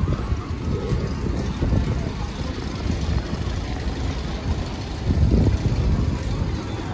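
Amusement-park ambience: a steady, fluctuating low rumble with no single event standing out.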